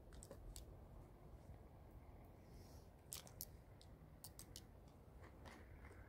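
Near silence with a scatter of faint, sharp clicks and ticks: plastic drink bottles being handled and set down.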